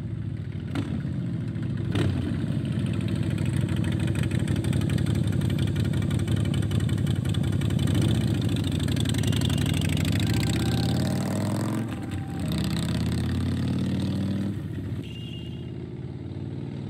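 Motorcycle engine running with a rapid, even beat. It dips briefly about twelve seconds in and runs quieter near the end.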